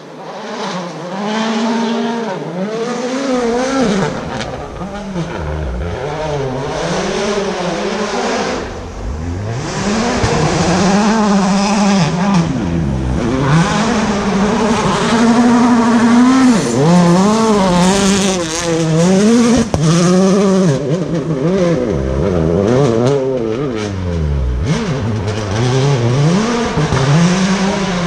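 Rally car engine revving hard and dropping back over and over through gear changes and corners as it is driven flat out along a gravel forest stage, with some tyre noise.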